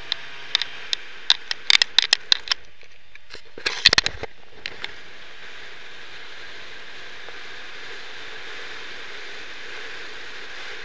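Wind rushing over an outside-mounted camera microphone on a moving open car, a steady hiss. It has bursts of crackling pops through the first couple of seconds and again about four seconds in.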